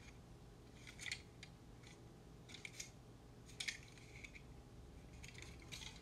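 Faint handling noises: a few light clicks and rustles as a model train caboose is turned over in the hands, in short clusters about a second in, around the middle and near the end.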